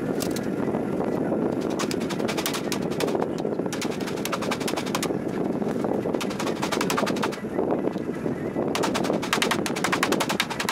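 A wooden block tapping sheet-metal roof flashing to fold it over the edge of a steel box section. It comes in rapid runs of light taps with short pauses between them, over a steady low rush.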